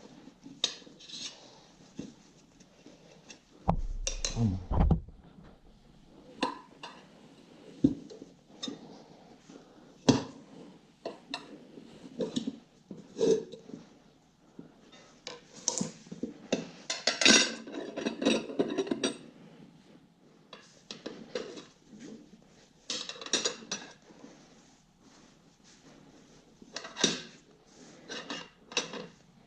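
Metal hand tools clinking and knocking irregularly against a small motorcycle wheel while its rear tyre is being changed, with a low thud about four seconds in.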